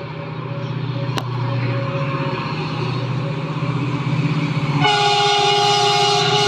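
Train's engine running steadily, with a short click about a second in, then the train horn sounds one held blast of about a second and a half, starting about five seconds in.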